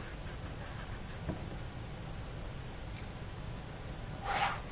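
Faint felt-tip marker writing on paper over a steady low room hum, with a light tick about a second in and a short hiss near the end.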